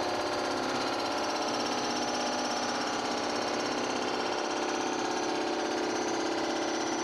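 Rottler surfacing machine milling the deck of a cylinder head: the spinning cutter head and its spindle drive give a steady mechanical hum with several held tones, unchanging throughout.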